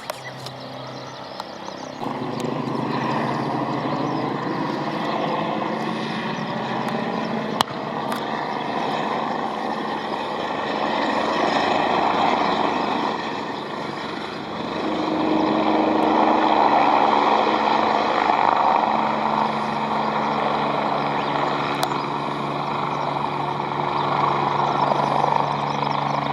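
Aircraft engine noise: a steady rushing drone with low humming tones that steps up about two seconds in and swells and eases twice.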